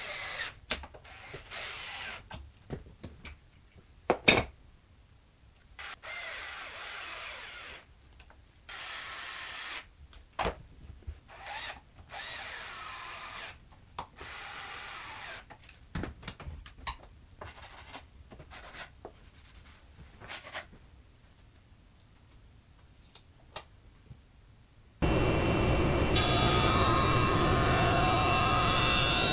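Cordless drill driving screws into a wooden frame in short bursts of one to two seconds, with sharp knocks and clicks between them, one of them loud about four seconds in. Near the end a jointer comes in loud and steady, running as a board is fed along its fence.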